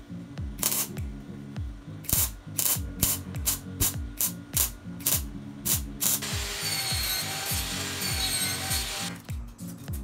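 Wire-feed (MIG) welder tacking steel square tubing: a run of short, sharp crackling bursts, then a continuous crackling hiss of about three seconds as a longer weld is run, a little past halfway through. A background music track with a steady thumping beat runs underneath.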